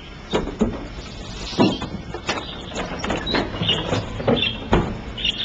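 Curtains being pulled open: a run of clattering knocks and scrapes, with a few short chirps from caged birds in the second half.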